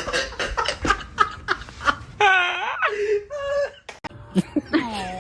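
A person laughing in short bursts, with two higher-pitched drawn-out cries a little past halfway.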